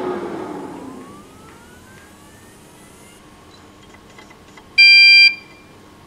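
QNAP TS-231 NAS starting up with two WD Red WD10EFRX 3.5-inch hard drives: a rush of air fades over the first second, the drives spin up with a whine rising in pitch, then about five seconds in the NAS gives one loud half-second beep. Afterwards the spinning drives leave a steady faint hum.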